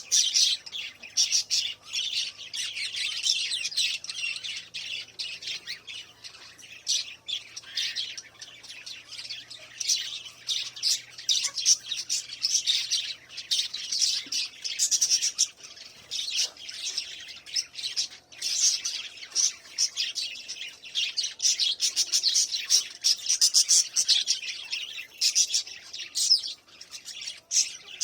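Several small parrots chattering nonstop, a dense mix of rapid high chirps and squawks.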